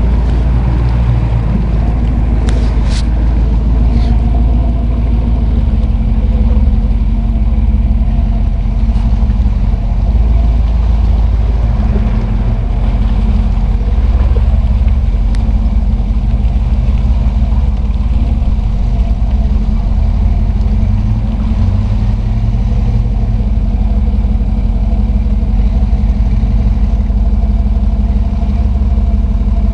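Jeep engine running steadily under load as it drives through deep mud and water, with mud tires splashing and spraying water. A few sharp knocks come about two to four seconds in.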